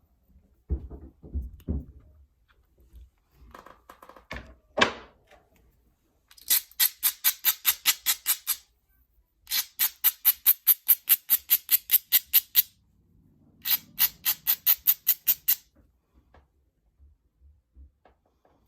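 Rapid back-and-forth strokes of stone on the edge of a novaculite point, about six a second, in three runs of a few seconds each, as when a flintknapper abrades the edge. A few low knocks come before the first run.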